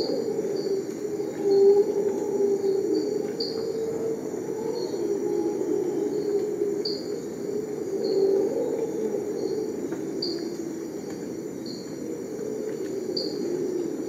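Tropical rainforest ambience: a steady high chorus of insects, with a short chirp repeating about once a second, over a dense, lower, wavering drone.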